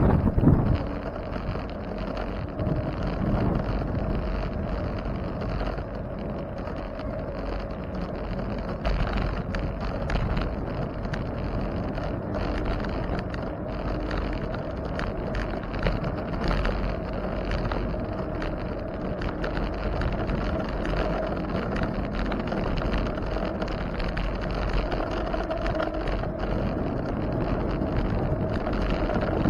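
Steady wind noise on the microphone of a camera riding along on a bicycle, with road and tyre noise underneath. There is a louder gust right at the start.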